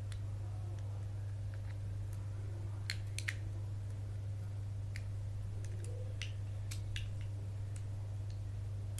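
Small sharp clicks from the plastic and metal parts of a pocket tape measure being handled and fitted together by hand, a quick cluster about three seconds in and scattered single clicks after. A steady low hum runs underneath.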